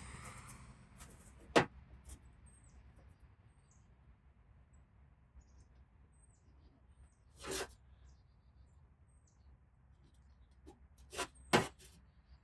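A few sharp knocks and clicks from hand tools handled during paintless dent repair: one after about a second and a half, a slightly longer scrape-like knock midway, and two close together near the end.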